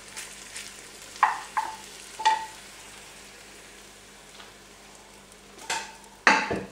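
Egg and sliced sausage frying inside a closed electric sandwich toaster: a steady sizzle with a few sharp clicks, and a louder knock near the end.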